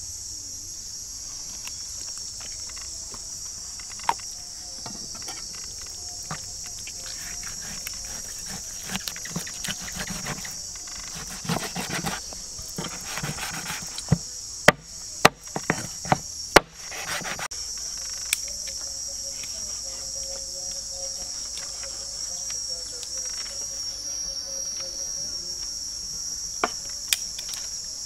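Insects chirring steadily in a high, unbroken drone. About halfway through, a quick series of sharp knocks comes from a heavy cleaver chopping raw meat on a wooden chopping board.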